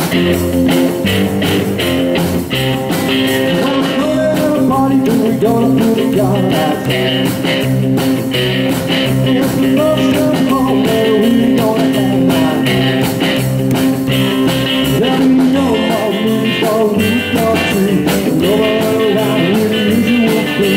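Live three-piece rockabilly band playing: electric guitar over upright double bass and drums, with a steady driving beat.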